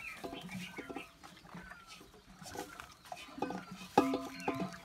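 Farmyard animal sounds: small birds chirping over and over in short falling notes, and about four seconds in a short, loud, even-pitched call from a farm animal. Fainter calls of the same kind come near the start.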